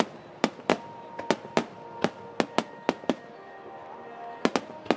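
Aerial firework shells bursting overhead: a rapid series of about ten sharp bangs, most in the first three seconds, then a lull and two more close together near the end.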